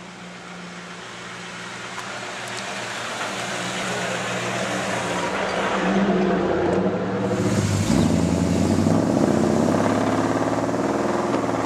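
Chevrolet 350 small-block V8 in a 1949 Chevy pickup running, growing steadily louder over the first six seconds and then holding. Its pitch shifts about eight seconds in as the engine revs.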